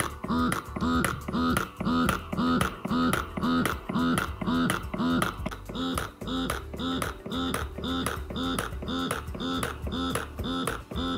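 Lansinoh double electric breast pump's motor pulsing in its stimulation phase, about two to three suction strokes a second, each with a whine that rises and falls. About six seconds in the rhythm slows a little and a higher tone joins.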